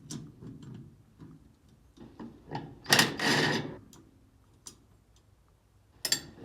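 Hand work on a metal handle bracket: scattered light metallic clicks and taps, with a louder clattering scrape about three seconds in and a sharp knock near the end, as a bolt is taken out and moved to a different hole.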